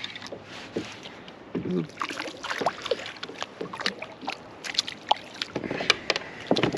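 Water sloshing around a plastic fishing kayak, with scattered knocks and taps as a small bluegill is handled and tossed back. The fish hits the water with a splash about four seconds in.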